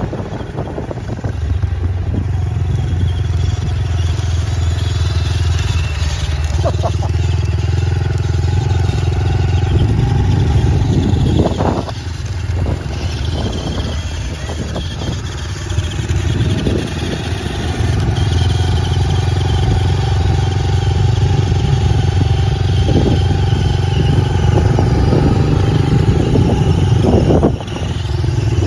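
A small motorcycle engine runs at a fairly steady speed, with a few short knocks here and there.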